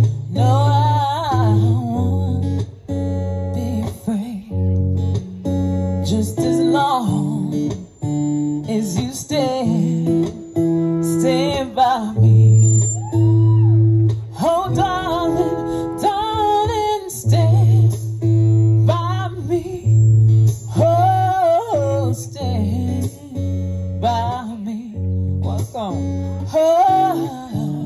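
A woman singing a slow song into a microphone over acoustic guitar accompaniment, her voice bending and holding notes through each phrase.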